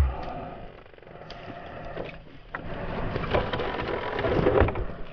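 A chainsaw being slid into or out of its mount on a dirt bike: scraping with scattered clicks and knocks, busier from about three seconds in.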